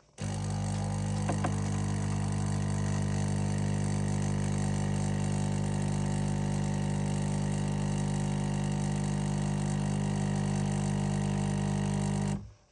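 Coffee machine running: a steady electric hum with a strong low drone that starts abruptly and cuts off suddenly after about twelve seconds.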